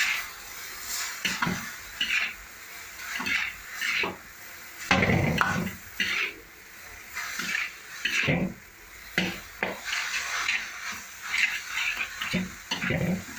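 Spatula scraping and clanking against a black wok as noodles and vegetables are tossed and stir-fried, in irregular strokes, with the longest and loudest one about five seconds in.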